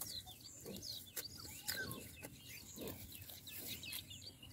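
Faint outdoor bird sounds: chickens clucking now and then under many quick, high bird chirps.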